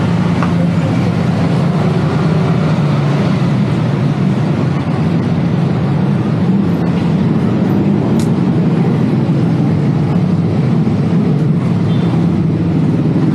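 Steady busy-street ambience dominated by a constant low rumble of road traffic.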